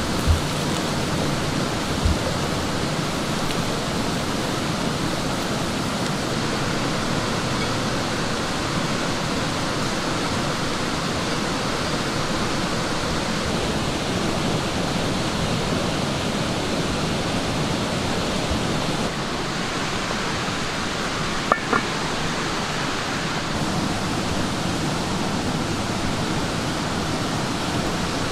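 Rice and black beans simmering hard in liquid in a cast iron skillet on a campfire: a steady bubbling hiss. A wooden spoon knocks against the pan twice near the start.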